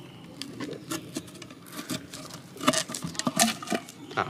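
A knife cutting around the paper top of a cardboard aerial firework shell and prying the lid off: irregular scratching, small clicks and paper crinkling, busier in the second half.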